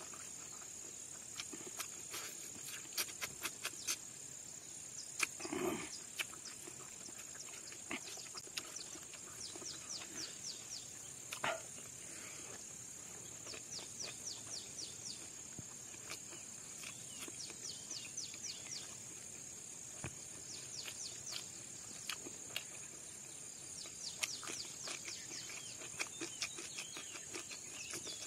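Close-up eating sounds: wet chewing and lip-smacking clicks in quick clusters, with one short louder sound about five seconds in. Under them runs a steady high-pitched insect drone.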